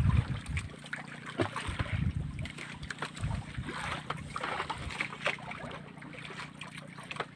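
Sea water sloshing and lapping against a drifting outrigger fishing boat, with wind gusting on the microphone and scattered small knocks and clicks, over a faint steady low hum.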